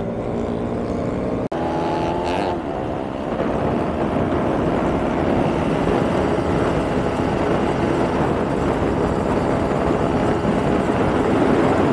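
Motorcycle riding at speed: the engine runs steadily under heavy wind rush, growing slowly louder. The sound drops out briefly about a second and a half in.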